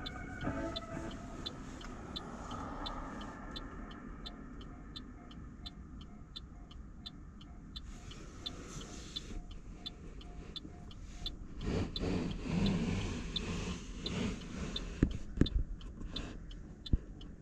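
Level-crossing warning bell ringing in an even repeating rhythm, about two or three strikes a second, over passing road traffic. From about twelve seconds in, vehicle noise grows louder and a few sharp knocks follow.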